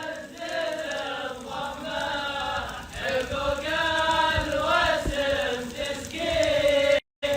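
An Arabic poem chanted a cappella, with long drawn-out sung notes. The sound cuts out for a moment near the end.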